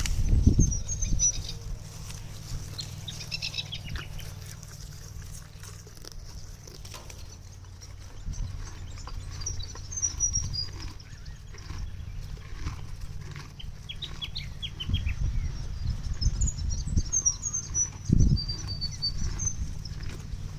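Small birds chirping now and then over a steady low rumble, with a couple of brief low thumps, one near the start and one near the end.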